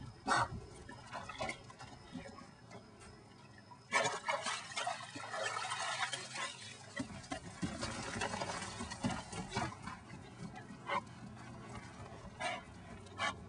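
Lake water splashing and sloshing as a small dog swims to the rocky shore and clambers out, with scattered clicks and knocks. The splashing is densest for a few seconds in the middle.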